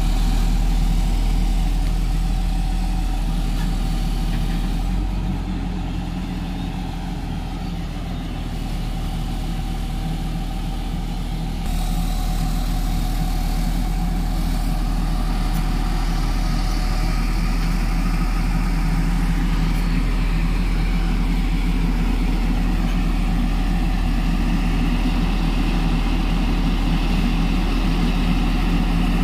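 Diesel engine of an IMT crawler piling rig running steadily at a low, even pitch, a little louder from about twelve seconds in.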